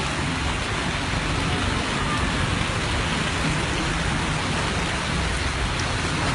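Heavy torrential rain pouring down steadily in a dense, unbroken hiss.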